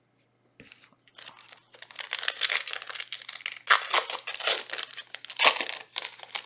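Foil wrapper of a Yu-Gi-Oh booster pack being torn open and crinkled by hand. Dense crackling starts about half a second in and is loudest in the middle and later part.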